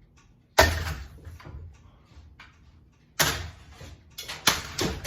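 Four loud bangs of hard blows striking a ceiling fan: one about half a second in, then three more in the second half, the last two close together, each dying away quickly.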